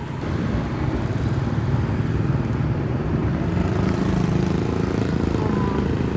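Street traffic heard from a moving becak: a motorcycle engine running close by, over a steady low road rumble.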